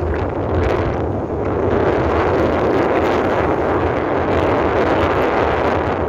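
Steady wind rushing over the microphone of a moving motorbike, with the bike's engine and road noise running underneath.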